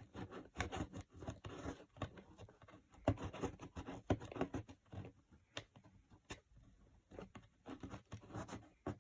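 Hardened hot-glue strings being scraped and picked off a cardboard coin ramp: irregular scratching and rubbing on cardboard with a few sharp clicks.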